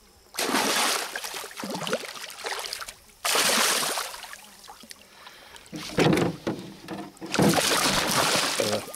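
A hooked arowana thrashing at the water's surface, splashing in four separate bursts: about half a second in, around three seconds, and twice more in the last three seconds.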